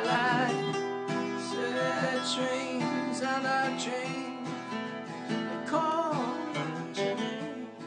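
Acoustic guitar strumming chords as the instrumental ending of a song.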